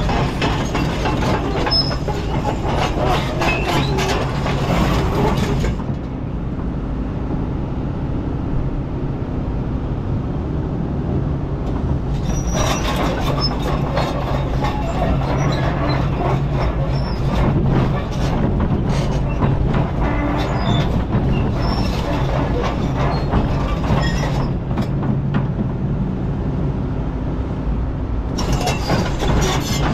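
Excavator's diesel engine running steadily under load, while the steel bucket scrapes and clanks over rocks and gravel. The clanking comes in spells, with a lull of several seconds after the first few seconds.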